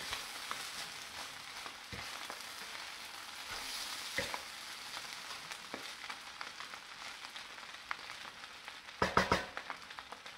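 Vegetable fried rice frying in a pan: a steady sizzle with occasional small clicks, and a short, louder clatter of knocks about nine seconds in.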